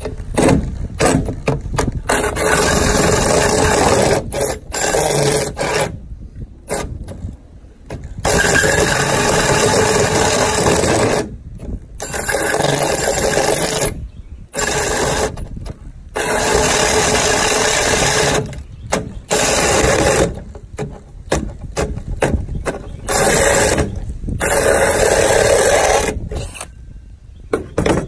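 Cordless drill spinning a large hole saw through a boat deck, the saw teeth grinding and rasping as they cut. The drill runs in repeated bursts of one to three seconds, stopping briefly between them.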